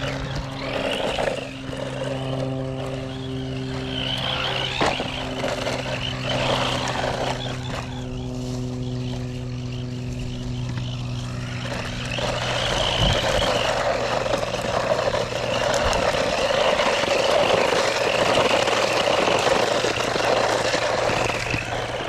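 DEERC 9000E 1:14-scale electric RC monster truck being driven, its motor whine and tyre noise surging and fading with the throttle and growing louder and more continuous about halfway through. A steady low hum runs underneath for the first half.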